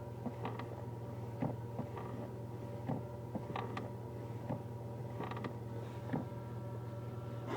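Clutch pedal of a Great Wall Safe F1 creaking and grinding as it is pressed and released: a series of short, sharp creaks about once a second, over a steady low hum. The creak is the fault in the clutch pedal that the video sets out to show.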